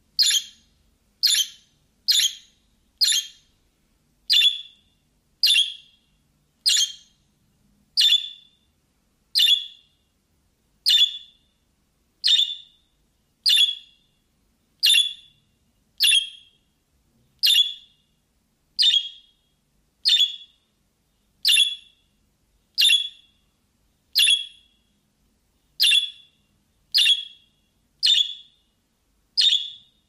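A recorded bird call played back on a phone: one short, sharp, high chirp repeated over and over at a machine-even pace, about two a second for the first few seconds, then about one every second and a quarter.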